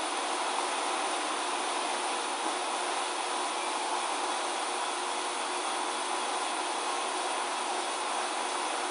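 Steady rushing background noise with a faint hum in it, even and unchanging, as of air moving through a room.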